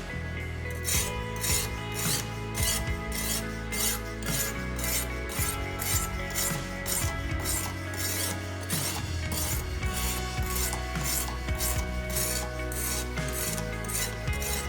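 A sharpening stone rasping back and forth along a kitchen knife's edge in quick, even strokes, about three a second, starting about a second in, over background music.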